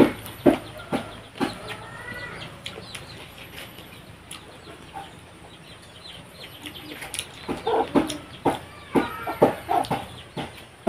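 Chickens clucking, a short call about two seconds in and a quick run of clucks near the end, over close-up chewing and mouth sounds of someone eating rice by hand.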